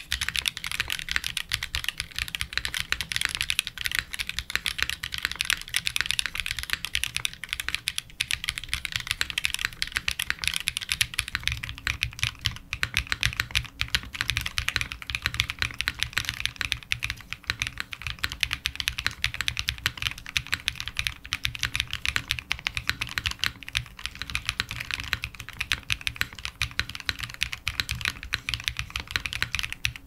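Continuous fast typing on an aluminium XOX70 mechanical keyboard with plate foam and TX stabilisers. For about the first 11 seconds it has Mode Obscura linear switches, then UniKeys X Switches: factory-lubed long-pole linears with PAK housings and an LY stem, typing with no scratch, no leaf noise and virtually no spring ping. The typing stops right at the end.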